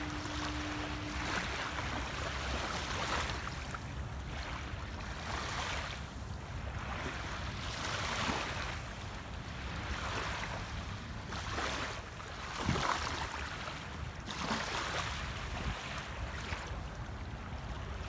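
Small waves lapping on a sandy shore, a soft wash that swells and fades every couple of seconds. A steady low tone sounds for about the first second.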